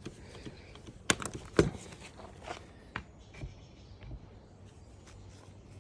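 A few light, scattered knocks and clicks, most of them in the first half, with no saw running.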